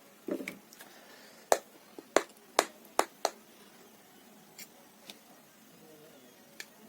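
Sharp clicks and taps of someone eating: about six in quick succession over a couple of seconds, then a few fainter ones.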